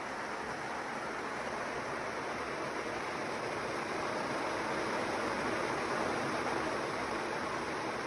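Kadıoğlu 180ED walnut hulling machine running, its drum of walnuts churning against the bristle lining under water spray: a steady rushing noise.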